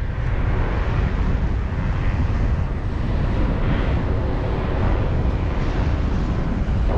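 Strong wind buffeting the microphone of a paraglider in flight: a steady, loud rushing noise, heaviest in the low end.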